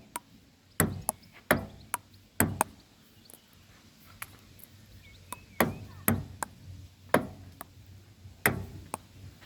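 Table tennis rally: a ball clicking back and forth between paddles and table, about four quick hits, a pause of a few seconds, then a longer run of hits.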